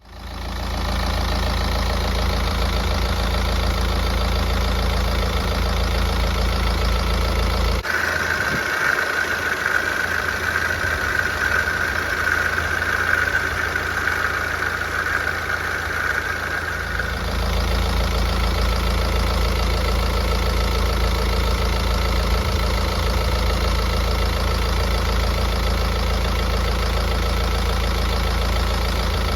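BMW N47 diesel engine idling smoothly with a new coolant pump. About eight seconds in, the same engine is heard with its old pump: a steady high whine rides over the idle, the noise of a failing coolant pump. Near the middle it switches back to the smooth idle.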